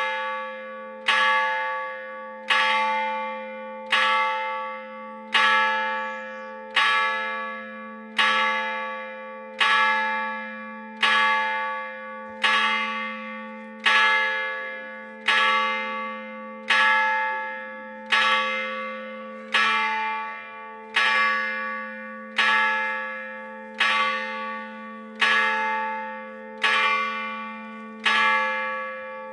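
Single church bell, the first and largest of a four-bell peal cast in Gescher, chimed by a hammer while hanging still rather than swung. It is struck at an even pace of about one stroke every 1.4 seconds, and each stroke rings out and fades over a continuous low hum.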